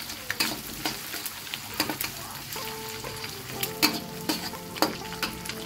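Egg frying in hot oil in a black wok, sizzling while a metal spatula scrapes and knocks against the pan again and again as it is stirred and broken up.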